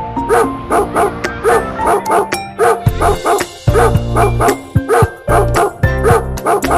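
A puppy yapping at its own reflection in a mirror: a rapid string of short, high barks, several a second. Background music with a bass line plays underneath.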